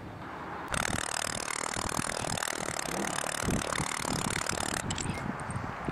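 Scraping and light clattering of small metal parts handled on the surface of a sodium-silicate sand mold. It starts abruptly about a second in and eases off near the end.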